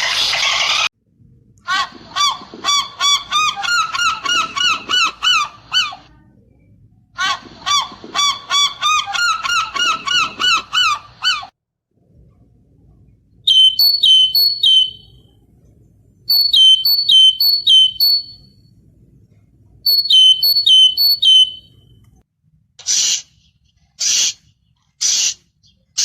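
Geese honking in two long runs of rapid honks. They are followed by high, short chirps in quick groups of three to five from another animal, and near the end by short hissing bursts about once a second.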